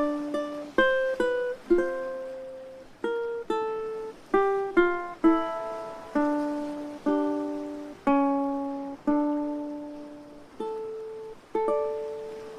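Ukulele playing a slow melody of single plucked notes, each ringing and fading before the next, with the last note near the end left to ring out.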